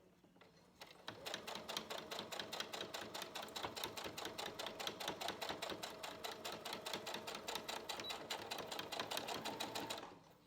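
Sewing machine stitching through felt: a fast, even run of stitch clicks with the motor humming, starting about a second in and stopping just before the end.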